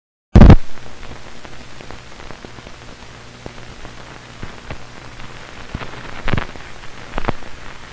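Background hiss and crackle of an old analogue recording, with a steady low hum and scattered clicks. A loud pop comes as the sound starts.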